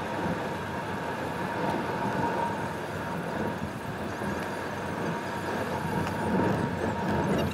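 Steady road and engine noise heard from inside a moving car's cabin: an even rumble of tyres and engine at cruising speed.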